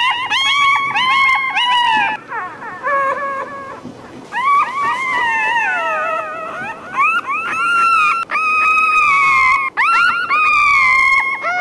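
Newborn Rottweiler puppies crying: a run of high-pitched whines that rise and fall, some long and drawn out, with a quieter spell about two to four seconds in.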